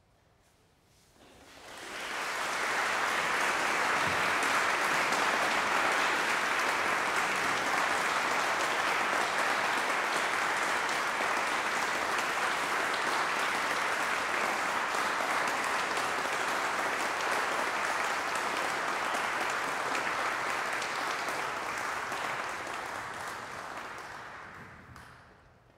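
Audience applauding. The clapping builds up about two seconds in, holds steady, then dies away near the end.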